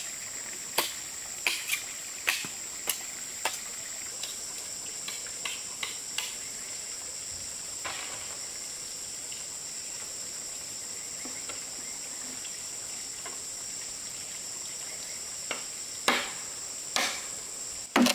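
Steady high-pitched drone of insects, with a series of sharp knocks a little under a second apart during the first six seconds and a few more near the end.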